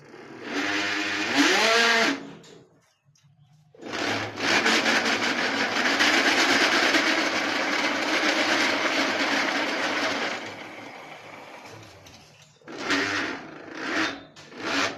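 Electric cycle hub motor running with a loud grinding whir. It makes a short run with a rising whine, then a long steady run that winds down, then three brief bursts near the end. The noise comes from a worn pinion gear, and the motor is not driving the cycle forward.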